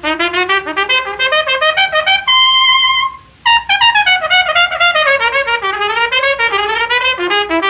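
Unaccompanied jazz trumpet cadenza played back from a 1928 78 rpm record. It opens with rapid runs of notes, then one high note is held for most of a second, and after a short break comes a long run of phrases that fall and rise.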